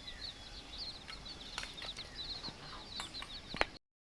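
A group of baby chicks peeping, many quick high chirps overlapping without a break, with a few sharp clicks; the sound cuts off suddenly near the end.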